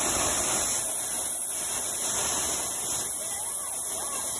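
Tall waterfall pouring down close by: a steady, loud rush of falling water.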